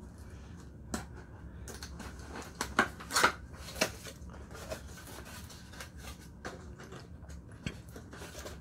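Cardboard retail box being opened by hand: the flaps rub and scrape, with a few louder sharp cardboard noises about three seconds in, then the case inside is handled against the cardboard.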